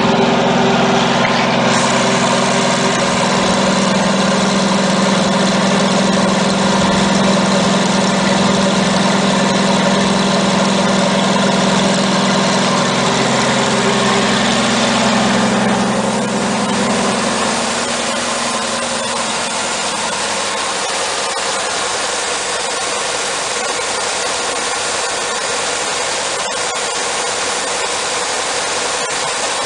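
The upper engine of a Michigan TLDT20 truck crane, a 320 cubic inch Hercules flathead six, running steadily on all six cylinders after years stuck. Its low, even drone softens a little about two-thirds of the way through.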